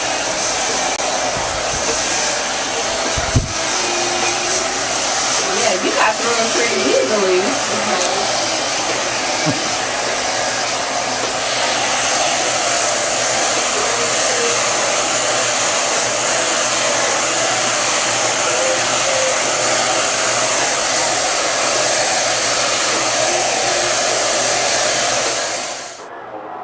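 Handheld hair dryer with a comb nozzle blowing steadily as it dries and straightens natural hair in a blowout. A loud, even rush of air that cuts off suddenly near the end.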